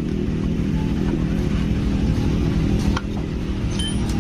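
An engine running steadily at idle, a low even hum, with a few faint clicks of tools about three seconds in.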